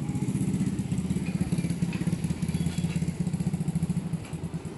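Motorcycle engine idling steadily, with a fast, even low pulse.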